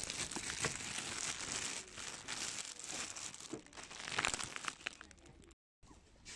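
Clear plastic packaging crinkling and rustling as packaged bedding is handled, with scattered crackles, dying down about five seconds in.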